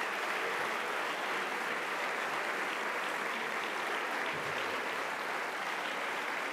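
A large crowd of legislators applauding, many hands clapping at once in a steady, sustained ovation.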